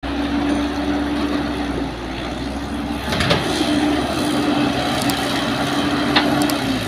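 Heavy diesel engines of a Caterpillar excavator and a dump truck running steadily with a constant hum, as the excavator unloads soil into the truck bed and swings back to dig. Two short sharp clanks, one near the middle and one near the end.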